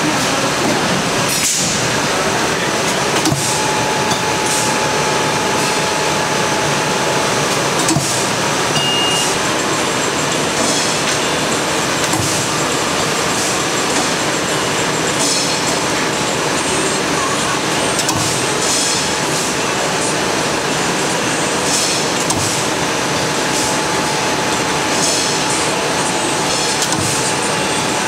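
Insert clinching press and sheet-metal handling on a factory floor: a loud, steady machine-shop din with sharp clicks and clanks every few seconds. A faint steady whine sits over it for two stretches.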